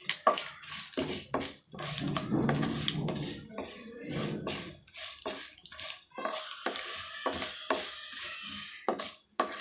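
Mustard seeds, cumin and fenugreek crackling and sizzling in hot sesame oil, with many irregular pops, as a wooden spatula stirs them in a nonstick kadai. This is the tempering stage, with the seeds bursting in the oil.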